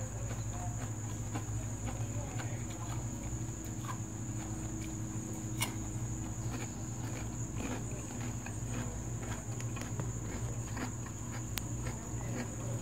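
A rabbit chewing peach, with small irregular crunching clicks, over a steady high-pitched insect drone and a low hum.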